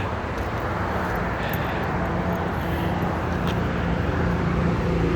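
A motor vehicle engine droning steadily, slowly getting louder toward the end, over a noisy outdoor hiss.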